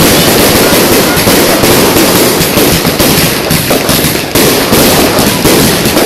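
Fireworks and firecrackers going off in a loud, dense, continuous crackle of rapid bangs.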